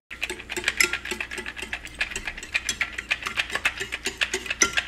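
Hand-pumped push-down whisk beating eggs in a ceramic bowl: its plunger mechanism clicks quickly and irregularly and the wire whisk rattles against the bowl.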